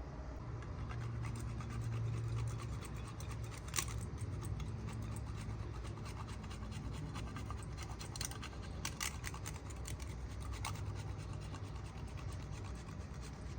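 Repeated scratching and rubbing with many fine clicks and a few louder sharp ones, over a steady low hum.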